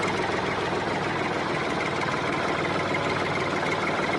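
A small motor running steadily with a fast, even buzz.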